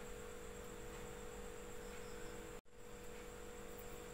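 Faint, steady electrical hum with a light hiss behind it. The sound drops out for an instant a little past halfway.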